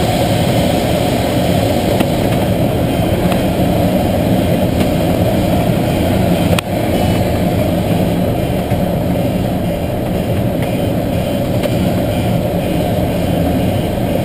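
Steady rush of airflow around a Schweizer 1-34 glider's canopy, heard inside the cockpit in engineless gliding flight. A single short click about halfway through.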